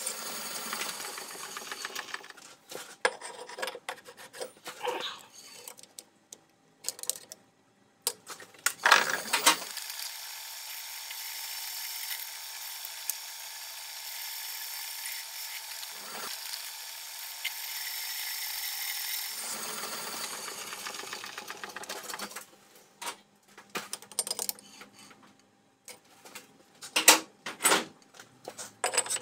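Metal lathe cutting a steel brake hub, sped up eight times: a steady, high-pitched machining noise with a few short dropouts and knocks. About 22 seconds in, the cutting gives way to scattered sharp clicks and knocks.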